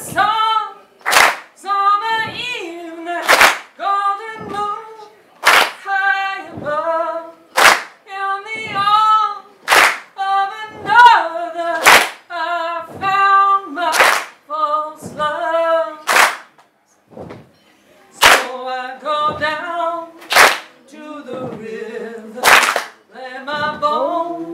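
A woman singing a gospel-style murder ballad a cappella, kept in time by a sharp hand clap about every two seconds. The singing breaks off briefly just past the middle.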